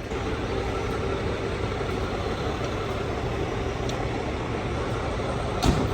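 Fire truck's diesel engine running steadily, with one solid thud near the end.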